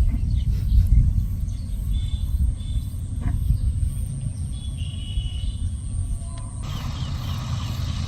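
A steady low rumble, like wind buffeting the microphone, with a few faint high bird calls about two and five seconds in.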